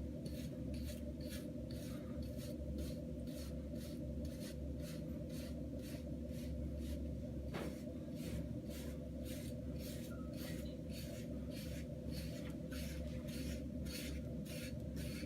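Hard curved Diane wave brush stroked repeatedly over short hair, an even run of quick scratching strokes about three a second, laying 360 waves down.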